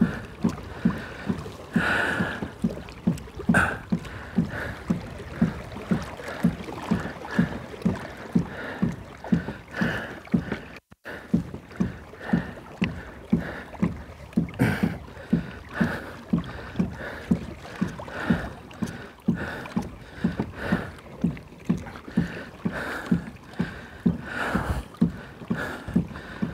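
Pedal drive of a Kayaks2fish NEXTGEN 11.5 fishing kayak being pedalled steadily, giving a regular knock about twice a second.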